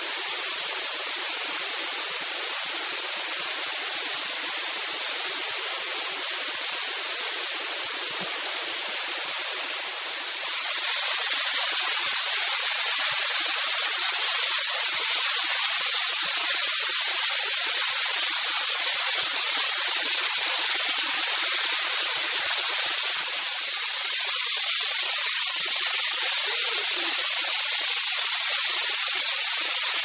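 A narrow waterfall pouring down a rock face and splashing onto the rocks below: a steady rushing hiss that grows louder about ten seconds in.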